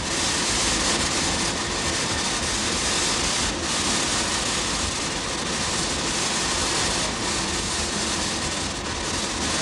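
Narrow-gauge steam locomotive running with a train of cane wagons, heard from on board: a steady, loud rush of running noise, a low rumble under a strong hiss, with a few faint irregular knocks from the wheels and wagons.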